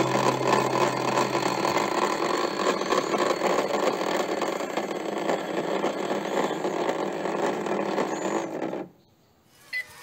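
Toy washing machine's small motor spinning the drum with a dense, buzzing rattle, cutting off suddenly about nine seconds in.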